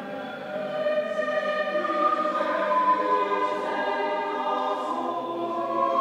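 Church choir singing a choral Evensong service, the voices getting louder about half a second in and holding long sung notes.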